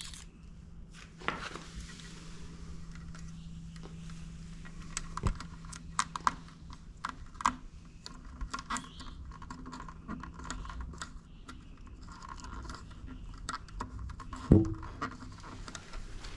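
Hands fitting wiring onto boat hardware: scattered light clicks, taps and rustling as the light's wire is routed and fastened down the Power-Pole's hydraulic tubing, with one louder knock about fourteen seconds in.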